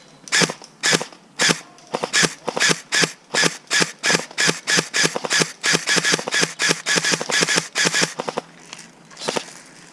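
Airsoft gun firing rapid single shots: a string of sharp cracks, a little spaced at first and then about four a second, stopping about eight seconds in.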